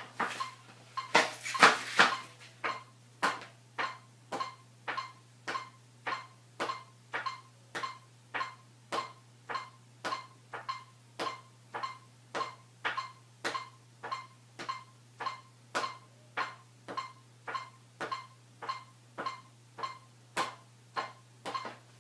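Metronome clicking steadily at 105 beats per minute, each click a short beep, with a hockey stick tapping a puck back and forth across a smooth floor in time with it. A few louder stick-on-puck knocks come in the first two seconds.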